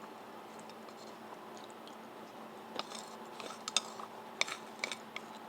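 Eating utensils clicking and scraping against a dish: a brief run of short, sharp ticks about three seconds in, over a faint steady hum.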